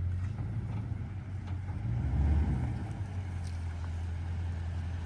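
Steady low hum of a running engine, swelling briefly about two seconds in.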